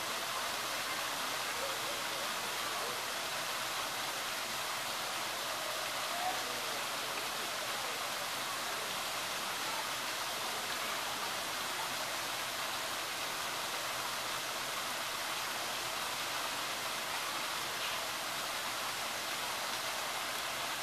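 Steady rushing splash of water pouring into a pool from a shower cascade.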